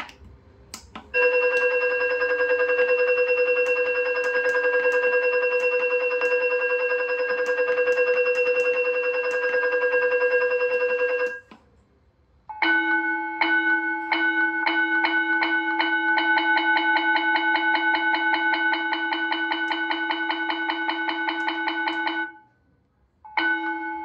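Electronic school-bell tones from an automatic school bell timer, played through a horn loudspeaker. First a steady ringing bell tone for about ten seconds, then after a short pause a second bell sound of rapid repeated strikes for about ten seconds. Near the end another short tone begins.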